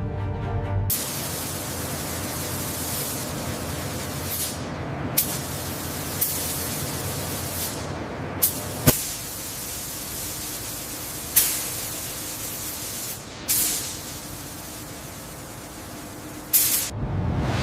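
A steady spraying hiss, broken by several short, sharp bursts of hiss.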